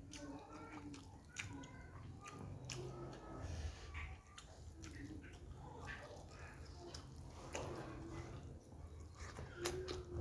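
A person chewing a mouthful of rice and noodles, with soft wet mouth sounds and scattered small clicks.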